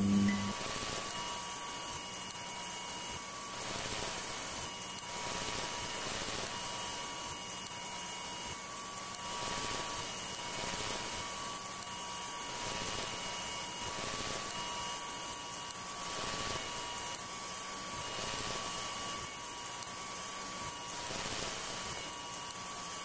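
Steady electrical buzz and hiss of a glowing neon sign, with a few thin high tones running through it and faint flickering surges now and then. A short low hum sounds right at the start.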